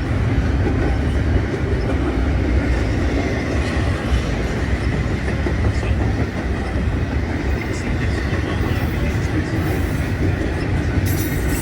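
Train running past close by: a loud, steady rumble of wheels on the rails, with a faint high tone throughout.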